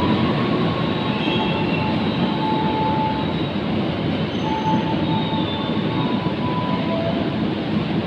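A long passenger train rolls along the station tracks with a steady rumble of wheels on rail. Several brief, high wheel squeals come and go.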